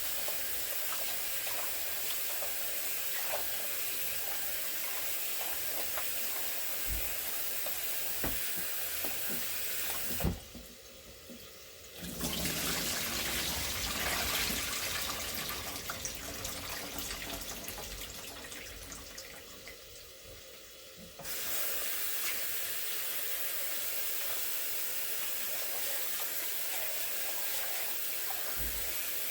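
Water running steadily from a kitchen tap into a sink. It is broken off for a moment about ten seconds in, then comes back louder and fades down until the steady flow returns.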